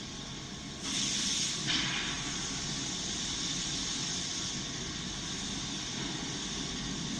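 High frequency PVC tarpaulin welding machine running with a steady hiss and hum. A louder hiss starts suddenly about a second in and lasts under a second.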